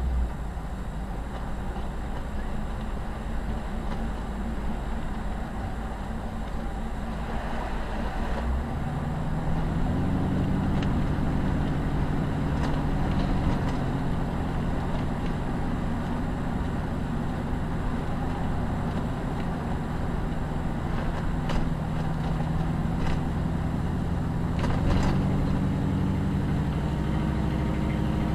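Car driving at low speed, heard from inside the cabin: steady engine and tyre noise. A steadier engine hum comes in about nine seconds in, and there are a few light clicks near the end.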